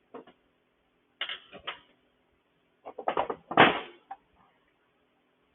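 Clunks and rattles of metal engine parts being handled as a small Honda GCV engine is split and its upper half lifted off. They come in a few short clusters, the loudest about three and a half seconds in.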